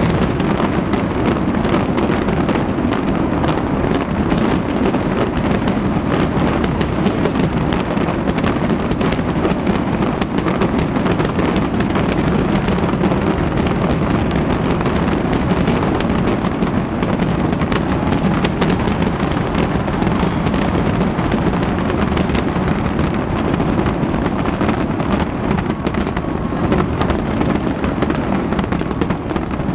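Aerial fireworks going off in rapid, unbroken succession: a dense, steady rumble of bangs with many small crackles throughout.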